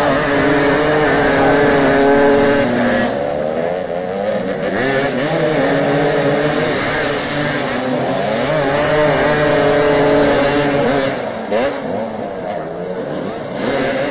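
Several motoball motorcycle engines revving up and down, their pitches rising and falling and overlapping as the bikes turn and spin on the dirt. The revving is loudest in the first few seconds and eases off near the end.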